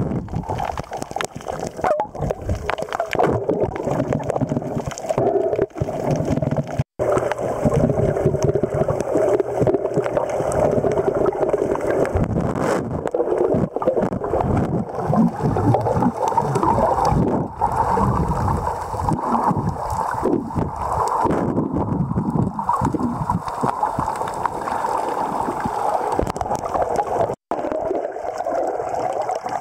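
Muffled, steady rush and slosh of water through an underwater camera's microphone as swimmers move through the water.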